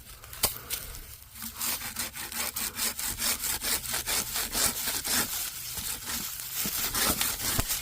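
Hand saw cutting through a wooden branch, in quick, even back-and-forth strokes that start about a second in.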